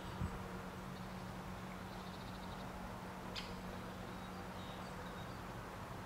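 Faint woodland ambience: a steady low hum and hiss, with a few faint high bird chirps, a quick run of ticks about two seconds in, and a single sharp click about three and a half seconds in.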